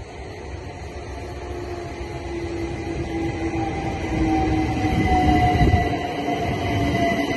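London Overground Class 378 electric multiple unit pulling in along the platform. The whine of its traction motors falls slowly in pitch as it slows, and the rumble of its wheels grows louder as it comes past.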